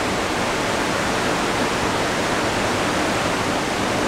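Mountain valley stream running steadily, an even rush of flowing water with no breaks.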